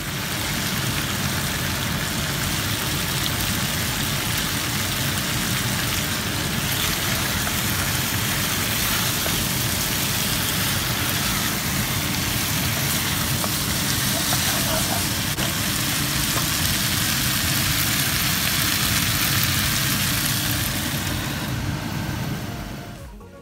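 Steady loud rushing roar and hiss of chicken pan-frying over an outdoor burner, with an uneven low rumble beneath. It fades out near the end.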